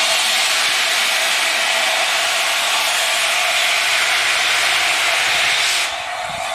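A4 Pacific steam locomotive No. 60007 Sir Nigel Gresley letting off steam: a loud, steady hiss that cuts off sharply about six seconds in.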